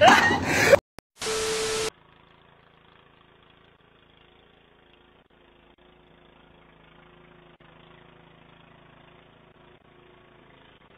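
A man's shout cuts off in the first second, followed by a brief hiss with a steady tone. After that, a snowblower's small engine runs faintly and steadily, heard thinly through a doorbell camera's microphone.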